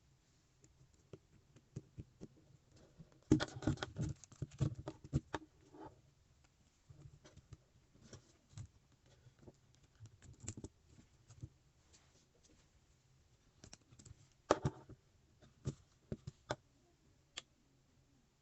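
Plastic Lego Technic pieces clicking and rattling as they are handled and pressed together. The clicks come in a dense cluster about three to six seconds in and another around fifteen seconds in, with single clicks scattered between.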